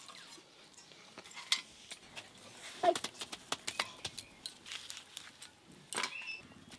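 Scattered light clicks and clinks of hand food preparation: raw chicken cut into small pieces with a curved hand blade, and pieces handled on a stainless steel plate. A few sharper clicks stand out about a second and a half in, near three seconds and near six seconds.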